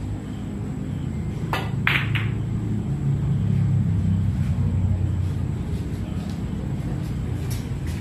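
Pool shot: the cue strikes the cue ball and the balls clack together, three sharp clicks in quick succession about one and a half to two seconds in. A low steady room hum runs underneath.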